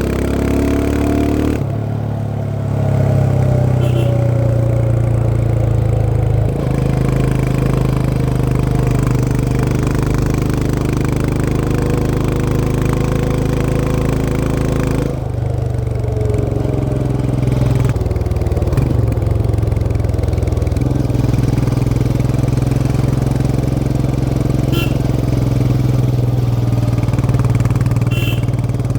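Royal Enfield Himalayan 411's air-cooled single-cylinder engine running under way, heard from the rider's seat. The engine note breaks and shifts at gear changes about two seconds in, around the middle, and again a few seconds later, and otherwise holds fairly steady, easing down slowly early on.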